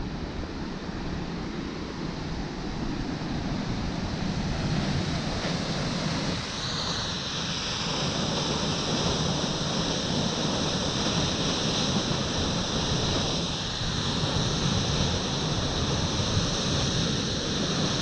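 Waterfall: a steady rush of falling water plunging into a pool, growing hissier about six seconds in.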